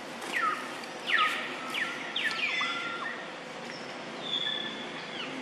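A string of high animal calls, each one gliding down in pitch: about six quick ones in the first three seconds, then one longer held call a little after four seconds in that falls away at its end.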